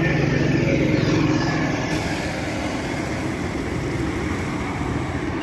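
A motor vehicle engine running steadily, with a low hum that is strongest in the first two seconds and street noise throughout.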